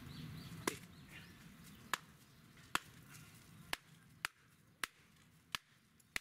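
Japanese nata (Japanese chopping hatchet) splitting kindling: the blade, with a stick wedged on its edge, is struck down onto a wooden block again and again. Eight sharp wooden knocks come at irregular intervals of about half a second to a second, the later ones softer.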